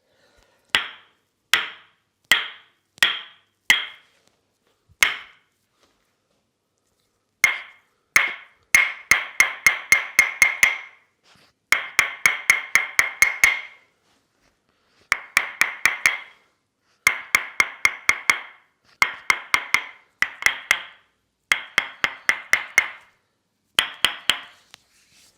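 Tok-Sen massage: a wooden mallet tapping a wooden wedge, giving sharp ringing wooden knocks. A few single strikes under a second apart come first, then quick runs of about five or six strikes a second, broken by short pauses.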